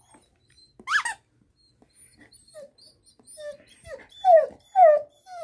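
White husky whining: one rising whine about a second in, then a run of short, falling whines that grow louder, the two loudest near the end.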